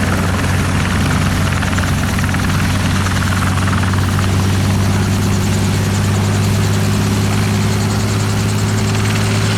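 Airbus H125 single-engine helicopter running steadily and loudly: a constant low rotor hum with a steady turbine tone over it.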